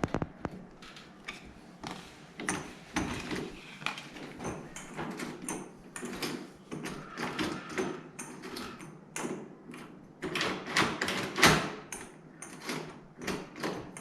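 Screwdriver tightening the long mounting screws of a door handle by hand, with many irregular clicks, scrapes and knocks on the door hardware.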